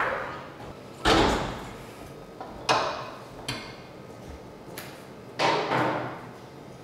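Loud metal-sounding bangs in an equine water treadmill chamber: four knocks one to two seconds apart, each dying away quickly.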